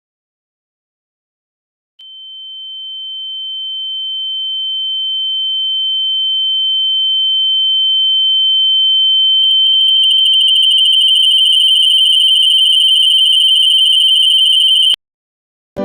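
A single steady, high-pitched electronic pure tone that starts about two seconds in and grows steadily louder, turning harsh and distorted for the last few seconds before cutting off suddenly.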